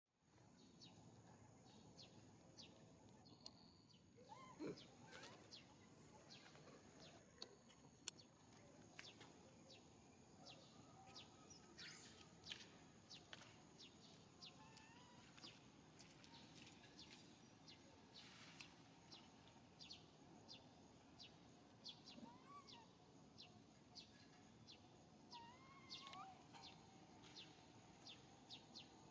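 Faint outdoor ambience: many short chirps and clicks over a steady high-pitched tone, with a few brief whistle-like calls.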